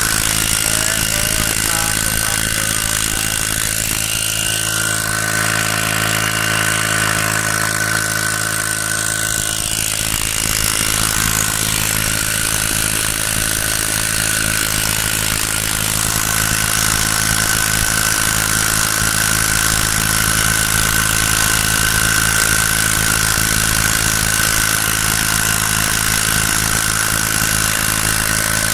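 Small brush-cutter engine driving a boat, running continuously at a steady speed, with a brief change in engine speed from about four to ten seconds in before it settles again.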